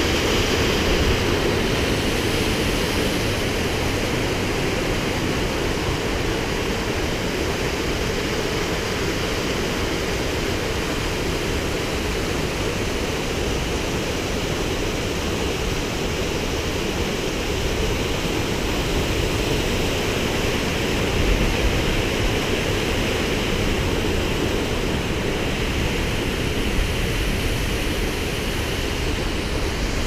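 Waterfall rushing steadily, a continuous even noise of falling and splashing water, with a few brief low bumps about two-thirds of the way through.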